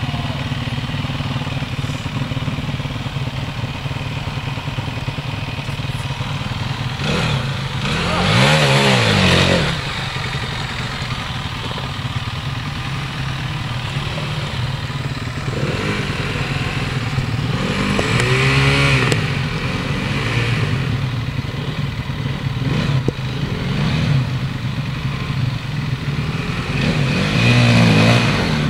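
Off-road enduro motorcycle engines running low and steady under load while climbing a rocky lane. Three times the throttle is blipped into short revs that rise and fall: about a third of the way in, past halfway, and again near the end, the last and first being the loudest.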